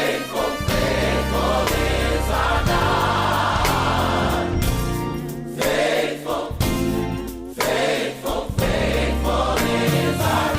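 Background music: a gospel-style choir singing over sustained bass chords.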